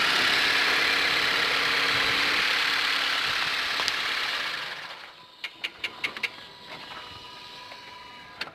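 The 2010 Dodge Avenger's engine running with a loud, steady whirring hiss from the engine bay, the strange noise being hunted down. It dies away about four and a half seconds in, followed by several light clicks.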